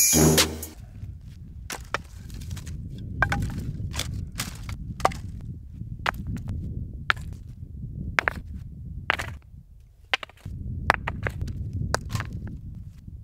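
Loose stones clicking and knocking against each other as rocks are picked up and moved by hand on stony ground, sharp irregular clacks every half second to a second, over a steady low rumble.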